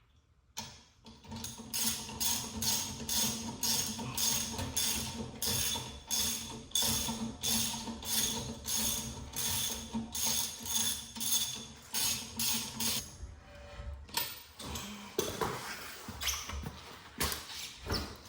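Ratchet wrench worked in steady strokes, about two to three clicking strokes a second, stopping about 13 seconds in and followed by a few irregular metal clicks and knocks.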